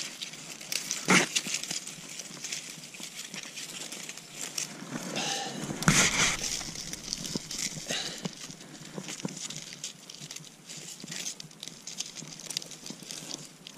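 Rustling and crackling of dry marsh grass and crusted snow while a trap is being handled and bedded close to the ground, with scattered small clicks and a sharp knock about a second in and a louder scuffle around the middle.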